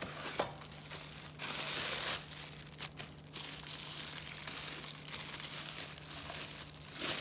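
Packaging being crinkled and rustled as a new electric kettle is unpacked from its box, in irregular handling bursts, loudest about two seconds in and again at the very end.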